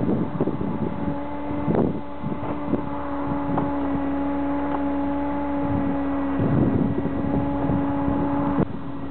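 A steady low mechanical hum with overtones, with wind gusting on the microphone and a few faint knocks.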